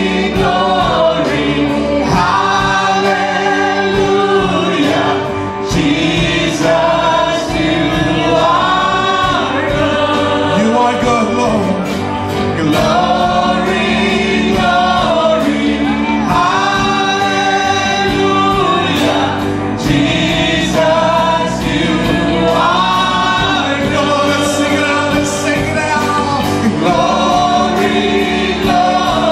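Live worship band: several singers on microphones singing together in sustained phrases, over an amplified band accompaniment.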